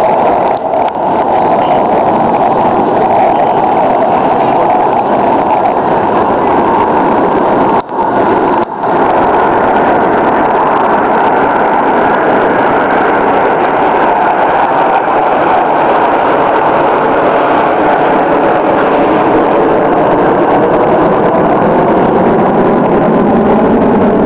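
Jet engine noise from a formation of military jets flying overhead: a loud, steady rush, with tones slowly falling in pitch near the end as the aircraft pass.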